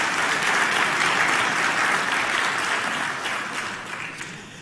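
Congregation applauding, the clapping fading away over the last second or so.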